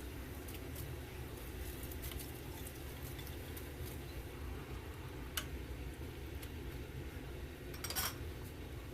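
Scattered light clinks and taps of kitchenware over a steady low hum. A sharper click comes about halfway through, and a brief clatter near the end.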